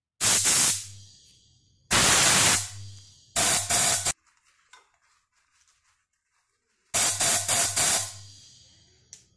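A compressed-air tool fired in four short, loud hissing bursts, the last one stuttered into several quick pulses.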